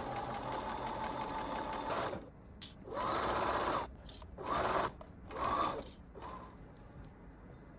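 Electric sewing machine stitching through quilted fabric: a steady run of about two seconds, then three short bursts of stitching, each under a second long and about a second apart.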